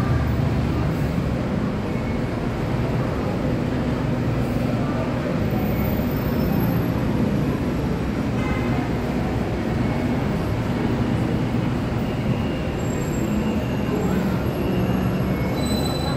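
Steady low rumble of city traffic and a BTS Skytrain train running on the elevated track beside the station.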